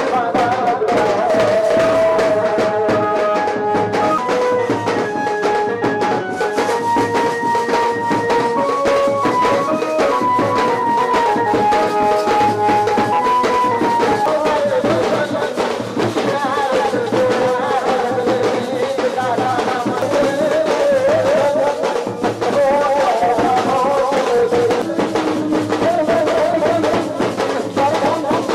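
Music with drums and a melody of held notes stepping up and down.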